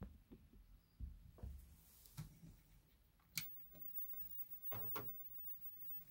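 A few faint clicks and knocks over a low steady hum; the sharpest click comes about three seconds in and two more come close together near five seconds.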